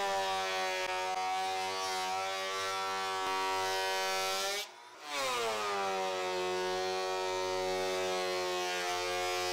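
Makita 2012NB portable thickness planer running as pine boards feed through: a steady, loud motor whine. It drops in pitch at the start of each pass as the cut takes load. The sound stops briefly about halfway and then starts again.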